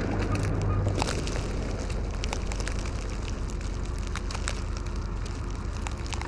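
Blizzard wind with snow ticking and pattering in many scattered clicks, over a steady low hum.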